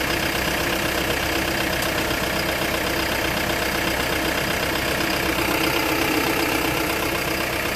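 Hyundai Bongo III diesel engine idling steadily, heard close up through the open engine cover, growing slightly louder about five to six seconds in.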